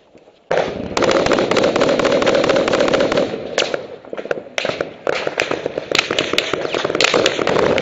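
Small-arms gunfire: a dense run of rapid automatic fire for the first few seconds, then single shots and short bursts at irregular intervals.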